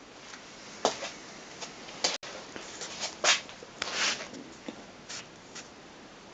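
A few short scuffs and rustles, about half a dozen, with a sharp click about two seconds in.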